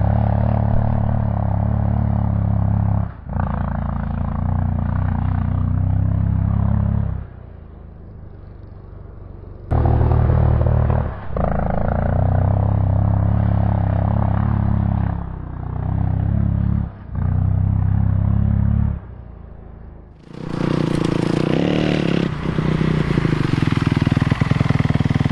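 Kawasaki KX250F four-stroke single-cylinder dirt bike engine at full throttle during a second-gear race start without launch control, the rear wheel spinning on grass. The engine sound is loud and breaks off briefly a few times, with quieter spells in between. Near the end the bike is heard close up, its revs falling away.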